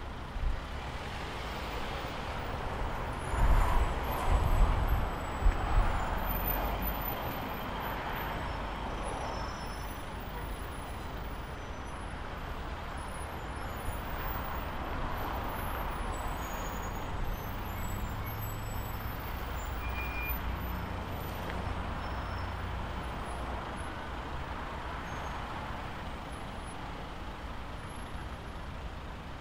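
Road traffic passing close by: car and heavy-vehicle engines running and tyres on the road, with the loudest vehicle passing about three to six seconds in.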